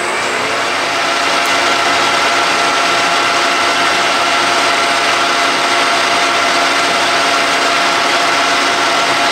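1982 Colchester 1800 manual lathe running steadily with a constant whine while a 1.9 mm extra-long drill bores into the end of a spinning tellurium copper rod.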